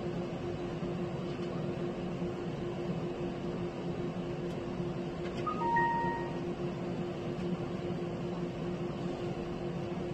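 Steady low electrical hum of equipment in an ultrasound exam room, with a short two-note electronic beep about halfway through.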